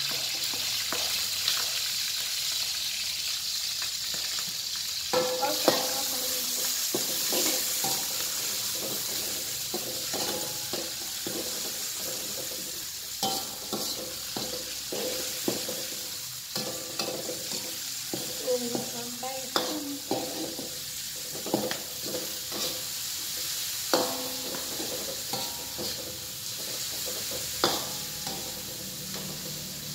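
Chopped shallots and chilies sizzling in hot oil in a metal wok, with a steady hiss. A metal spatula stirs and scrapes them around the wok, and from about five seconds in it knocks against the wok every second or so, some knocks ringing briefly.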